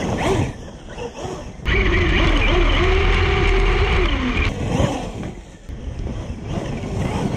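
Traxxas UDR RC truck's electric motor whining, rising and falling in pitch with the throttle as it drives over rough ground. The sound is loudest with a heavy rumble from about 2 to 4.5 seconds in.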